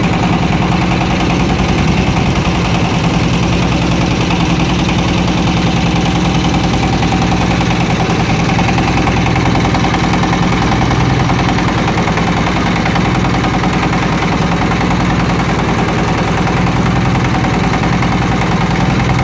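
Boat engine running steadily, a loud, even drone with a strong low hum.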